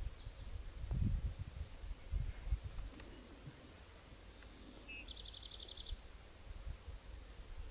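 Outdoor ambience of scattered small-bird chirps, with a rapid trill of about a dozen even notes about five seconds in, over low rumbling bumps that are loudest in the first few seconds.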